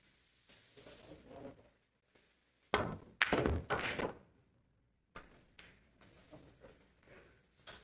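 Pool balls clacking on a billiard table. A sharp knock comes a little under three seconds in, then a louder cluster of ball-on-ball knocks for about a second, followed by lighter, scattered clicks.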